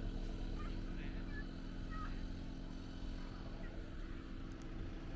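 Camper van engine running steadily at low speed as the van creeps along, a constant low hum.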